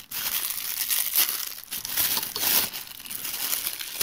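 Clear plastic wrapping crinkling and rustling in irregular handfuls as it is pulled off a mini flexible-leg tripod.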